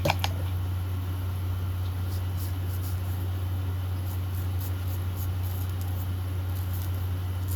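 A steady low electrical-type hum, with a sharp click just at the start and a run of faint, light high scratches in the middle.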